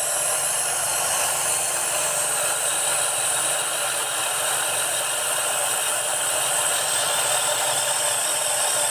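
Ford Thunderbird Super Coupe's supercharged 3.8-litre V6 running, heard as a steady, even hiss with no clear beat and a high steady tone over it.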